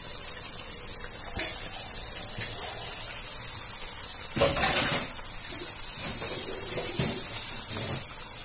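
Curry spice paste sizzling in oil in a frying pan, the paste cooked until the oil separates. About halfway through comes a louder burst of sizzling and clatter as raw chicken pieces go into the hot oil.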